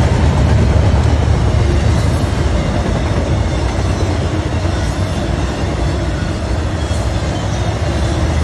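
Intermodal freight train of double-stack containers and trailers on well cars rolling past at steady speed: a continuous, even rumble of steel wheels on the rails.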